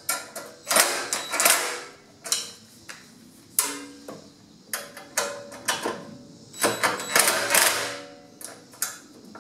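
Cordless driver run in short bursts with a brief whine, tightening the screws of worm-drive hose clamps that hold down a sheet-steel heat shield, with clicks and knocks of metal between the runs; the longest runs come about a second in and again about seven seconds in.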